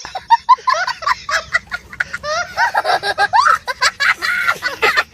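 High-pitched laughter in a rapid, continuous run of short giggling bursts that swoop in pitch, growing louder and fuller from about two seconds in.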